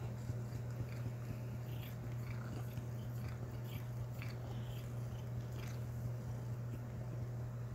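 Norwegian Forest Cat grooming right beside the microphone: scattered short wet licking clicks over a steady low rumble.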